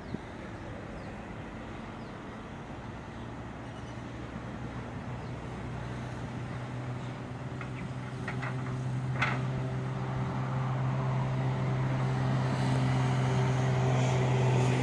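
Heavy diesel engines of an excavator and a dump truck running steadily, with the hum growing louder. About eight to nine seconds in come a few knocks as the excavator bucket empties soil into the truck's steel tipper bed.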